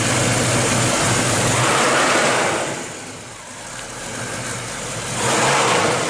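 1969 Chevrolet Camaro SS's 350 cubic-inch V8 running and being revved through its dual exhaust. It eases off about three seconds in, then is revved up again about five seconds in.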